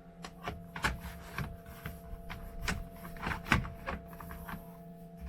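Irregular clicks and light knocks of things being handled, about a dozen, over a faint steady electrical hum.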